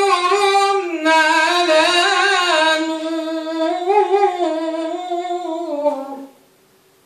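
Man's voice chanting Qur'anic recitation in the Warsh reading: one long drawn-out melodic phrase, ornamented with wavering turns, that falls in pitch near the end and stops about six seconds in.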